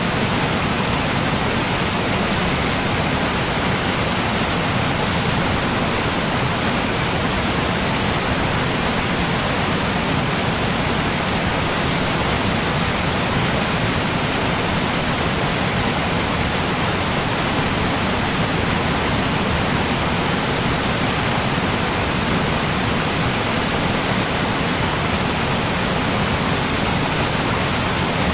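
A large waterfall: a loud, steady rush of falling water with no breaks or changes.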